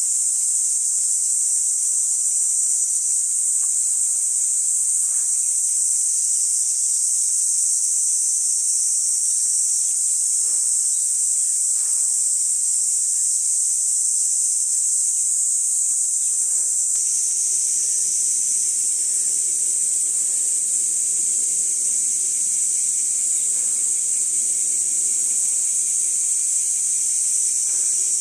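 Steady, high-pitched trilling of a chorus of singing insects such as crickets, unbroken throughout. A fainter low hum joins about two-thirds of the way through.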